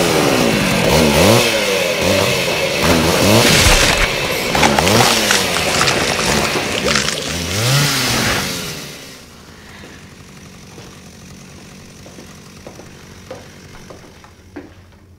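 Chainsaw revving up and down over and over, loud, then dropping away about nine seconds in to a much quieter low hum.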